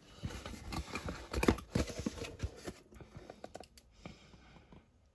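Irregular small clicks, taps and rustles of trading-card booster packs being handled and set down on a table, thinning out toward the end.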